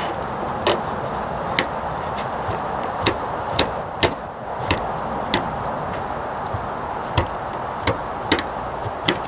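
Scattered sharp clicks and knocks of potatoes being handled and a knife starting on them, over a steady rushing hiss.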